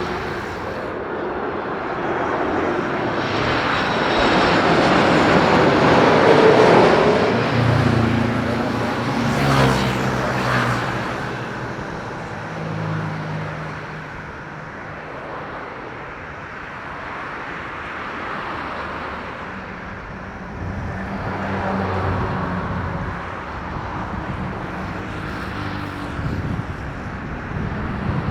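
Jet airliner engines running as the plane passes, swelling to a peak a few seconds in, then fading, with a second, lighter swell near the end.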